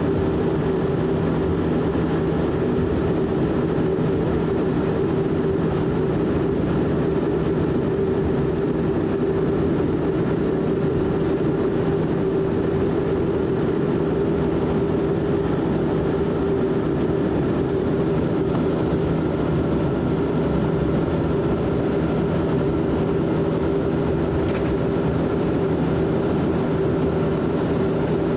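Dash 8 Q400's Pratt & Whitney PW150A turboprops and six-bladed propellers running at taxi power, heard inside the cabin: a loud, steady drone with an even hum.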